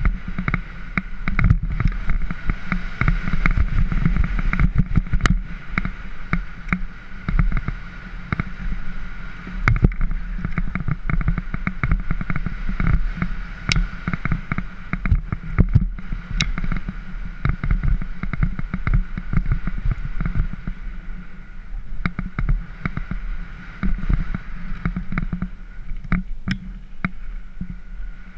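Mountain bike rolling fast down a gravel dirt trail, heard from a helmet camera: tyres crunching over the gravel, many small clicks and knocks from the bike and the camera rattling over bumps, and wind rumbling on the microphone.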